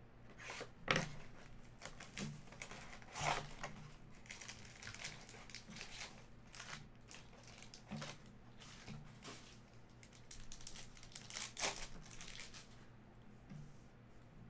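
Plastic wrapping and foil trading-card packs crinkling and tearing as a card box is unwrapped and a pack is ripped open. The crackling comes in irregular handfuls, with the loudest about a second in, about three seconds in and near the end.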